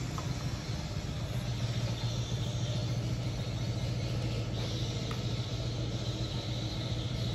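A steady low hum over a faint steady background noise, with a couple of faint light clicks.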